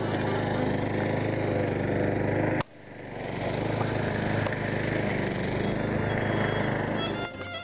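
Small engine running steadily. It cuts off abruptly about two and a half seconds in, then fades back up and carries on. Music comes in just before the end.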